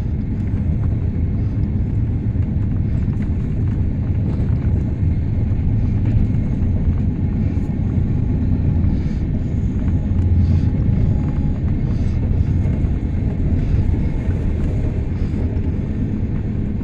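Passenger train running at speed, heard from inside the coach: a steady low rumble of the carriage on the rails, with faint clicks now and then.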